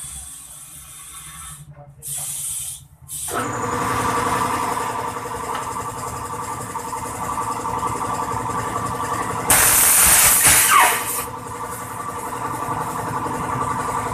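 Compressed air hissing from an air hose in short blasts as a tyre is worked on; about three seconds in an air compressor starts and runs with a steady hum. A longer, louder blast of air comes around ten seconds in.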